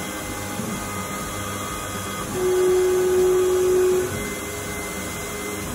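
Denford CNC router running, its Kress spindle and end mill cutting a shallow outline into timber with a steady mechanical hum. A louder steady tone comes in for about a second and a half in the middle, then drops back.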